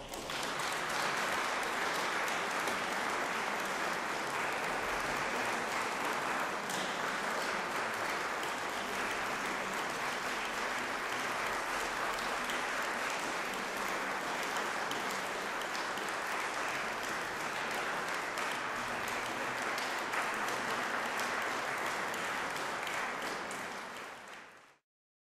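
Audience applauding steadily, fading out quickly near the end.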